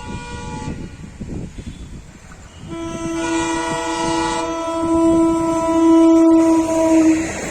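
WDM-3A diesel locomotive's air horn sounding: a horn note dies away at the start, then after about three seconds of train running noise the horn blows again, a long, loud, multi-tone blast held until near the end, over the rumble of the passing train.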